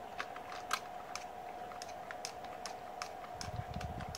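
Light, irregular clicks and taps as a plastic monitor housing is handled against a metal TV wall-mount bracket and fitted onto it, over a faint steady hum.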